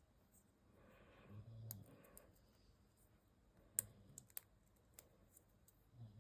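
Faint, sparse clicks of tiny plastic building-block pieces being handled and pressed together, the sharpest about four seconds in.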